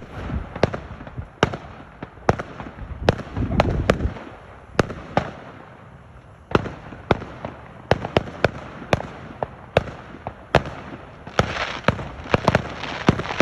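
Fireworks display: sharp bangs from exploding shells at an irregular pace, roughly two a second. There is a heavier low rumble a few seconds in, and a denser crackle near the end.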